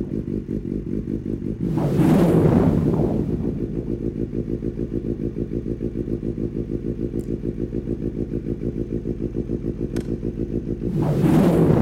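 Yamaha FZ6 inline-four motorcycle engine idling through aftermarket GPR twin silicers, blipped up and back down once about two seconds in and again near the end.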